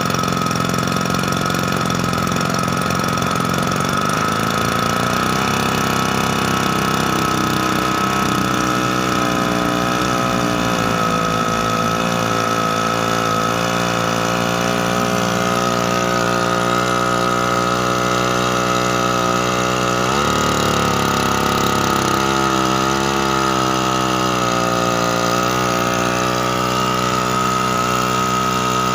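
Small two-stroke engine of a Yamamaxpro 1-inch irrigation water pump running on a test, with a steady high whine over the engine note. Its speed shifts several times, dipping sharply and picking back up about two-thirds of the way through.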